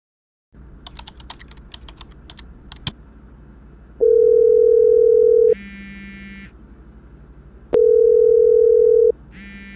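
A few light clicks, then a telephone call ringing out: a steady ringback tone about a second and a half long, followed by a shorter buzzing tone, repeated twice about four seconds apart.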